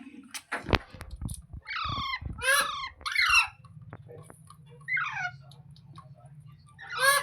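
Pet rose-ringed parakeet (ringneck parrot) giving about five short, squawky calls that bend in pitch. A few low thumps come about a second in, and a low steady hum starts about halfway through.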